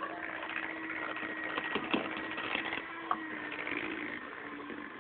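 Electric hand mixer running steadily with a motor hum, its beaters working a bowl of batter. A couple of sharp knocks come about two seconds in and again a second later.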